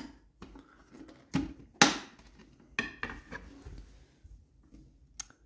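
Hard plastic parts of a Minion popcorn bucket knocking and clicking as it is handled, a handful of sharp taps with the loudest about two seconds in.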